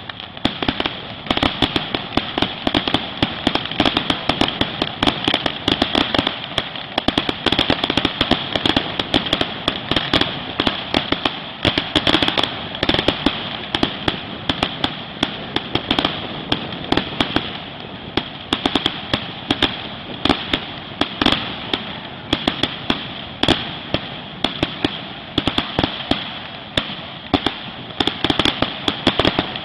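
Fireworks display: a dense, continuous barrage of bangs and crackling pops, many per second, with no let-up.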